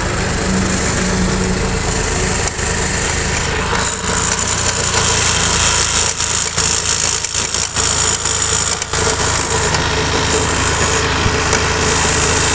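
Honda Activa 5G scooter's single-cylinder four-stroke engine running, noisy enough that it is being run to show the engine noise problem the scooter has when ridden.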